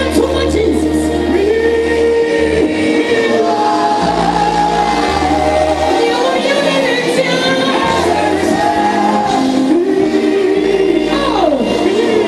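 Live gospel music: a woman singing into a microphone over a band, with low held bass notes changing every second or two.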